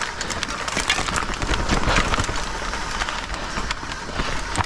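Mountain bike riding down a dirt trail: a steady rush of tyre noise over rough ground, with many sharp clicks and rattles from the bike.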